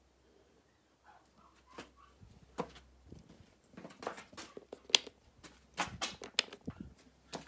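Irregular knocks and clicks from someone moving about and handling things, sparse at first and busier from about two and a half seconds in.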